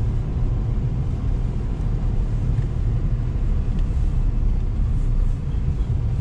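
Lada Niva Travel's 1.7-litre four-cylinder petrol engine and drivetrain, heard from inside the cabin as a steady low rumble while it drives slowly over a snow-covered road.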